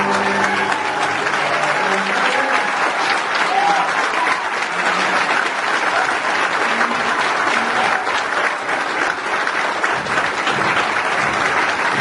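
Audience applauding steadily, with the last held notes of the music dying away in the first couple of seconds.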